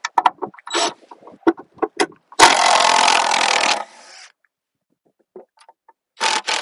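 Cordless drill run at the 2x10 guide board screwed onto the log, in one burst of about a second and a half, with a second short burst near the end. It is preceded by a few light clicks and knocks of handling.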